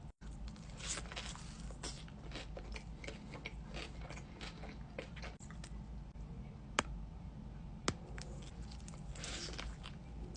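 Close-up eating sounds: biting into and chewing crunchy fried food from a Dave's Hot Chicken order, with repeated crackly crunches. Two sharp clicks stand out a little after the middle.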